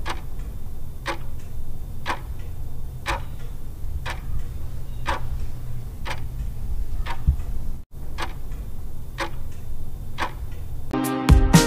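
Clock-ticking sound effect counting down a quiz timer: a stronger tick about once a second with softer ticks between, over a low steady hum. It breaks off for an instant about eight seconds in, and music comes in just before the end.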